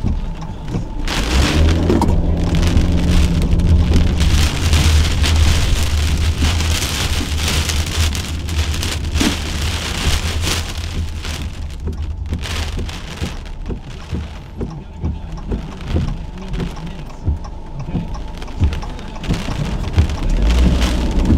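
Rain falling hard on a surface in a severe thunderstorm. A deep low rumble lies under it from about a second in until past the middle, then comes back near the end.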